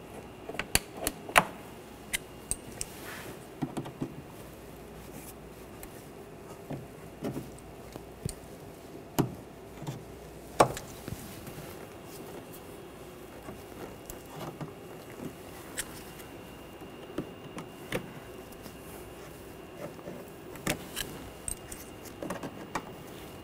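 Plastic windshield-cowl retaining clips being pried loose with a metal pick: scattered, irregular sharp clicks and snaps with small clinks of the tool between them.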